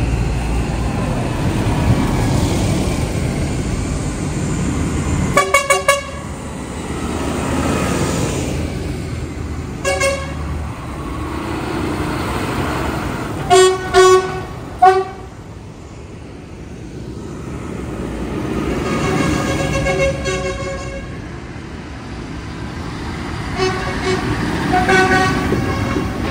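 A convoy of tractors driving past one after another, the engine rumble swelling and fading as each goes by. Horns toot over it in short bursts several times: a quick run of toots about five seconds in, then single toots and pairs, and longer blasts later on.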